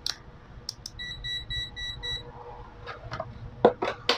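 A digital multimeter gives a run of five short electronic beeps, about four a second, as it is switched on and set. These are followed by several sharp plastic clicks and knocks as the meter is handled and its test leads are plugged in.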